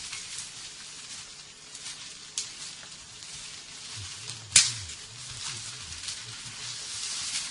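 Rustling of dry leaves and undergrowth as someone moves through forest brush, with two sharp snaps, the second and louder one a little past halfway.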